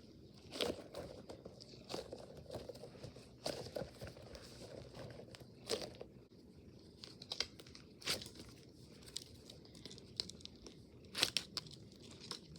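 Crinkly material being handled and torn, in irregular bursts of crinkling with sharp crackles, a few seconds apart.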